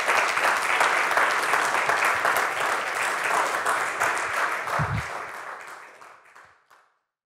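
Audience applauding, a dense patter of many hands clapping that fades out over the last two seconds. There is a short low thud about five seconds in.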